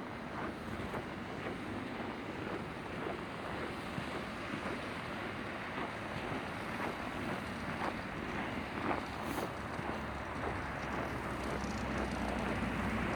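Wind rushing over the microphone outdoors in snowy weather, a steady noisy rush with small crackles, the low rumble growing slightly stronger toward the end.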